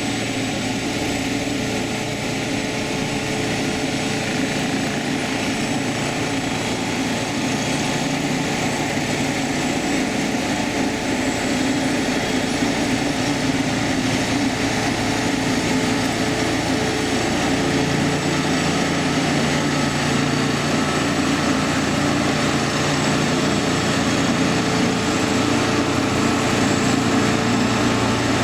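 Engines of railroad track-repair machines running steadily, the drone growing slightly louder over the stretch.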